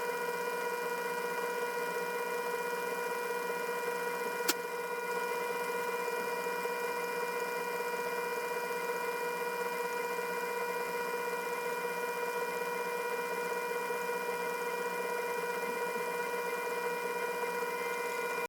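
Small lathe running slowly with a steady whine, an M4 tap turning in the chuck as it hobs teeth into a 3D-printer extruder gear. One sharp click about four and a half seconds in.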